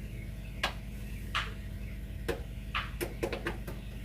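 Steady low electrical mains hum with a series of sharp clicks and knocks: a few spaced out, then a quick cluster near the end, as sound-system cables and gear are plugged in and handled.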